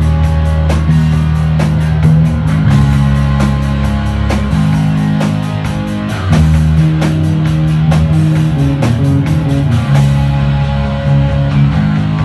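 A live rock band plays electric bass, electric guitar and a drum kit together. Heavy bass notes move every second or two under the guitar, and the cymbals keep a steady beat.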